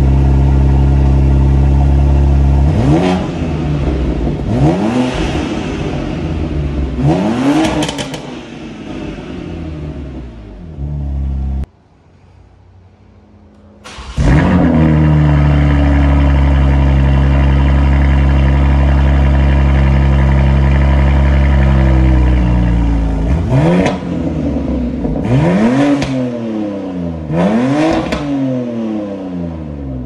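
BMW M4 Competition's twin-turbo inline-six, parked, with a Valvetronic Designs full exhaust (midpipe and axle-back): with the exhaust valves closed it idles, then takes three quick rev blips that fall back. After a short break it idles again with the exhaust valves open and takes three more rev blips near the end.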